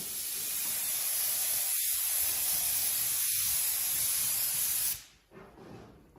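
Airbrush spraying: a steady hiss of compressed air through the nozzle that stops suddenly about five seconds in.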